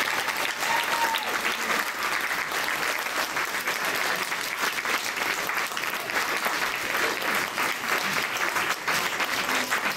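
A roomful of people clapping steadily, a few seconds after a choir's song ends.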